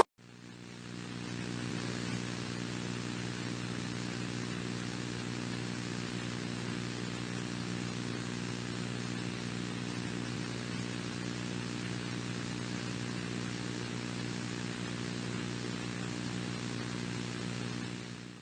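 A steady low hum with a layer of hiss, the dead air of the 'silent' alert broadcast. It fades in over the first second or two and fades out near the end.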